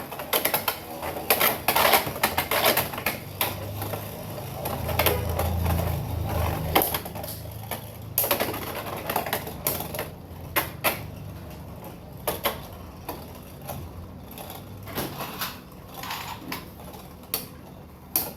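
Beyblade X spinning tops battling in a plastic stadium: a long run of sharp plastic clicks and knocks as they clash and skitter, with a low hum while they spin.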